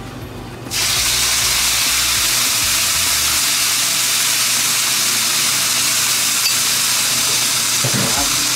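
Seasoned chicken pieces dropped into a pan of hot, near-burning caramelised sugar and olive oil, setting off a loud, steady sizzle that starts suddenly about a second in. The caramel is searing the chicken to give it a reddish-brown colour.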